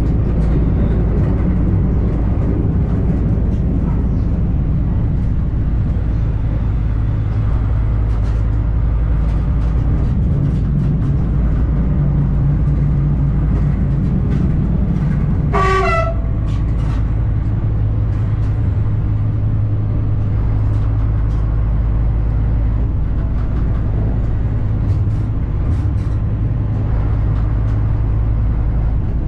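Diesel railcar running along the line, heard from inside the driver's cab: a steady low drone with scattered clicks from the wheels and rails. About halfway through the horn gives one short toot.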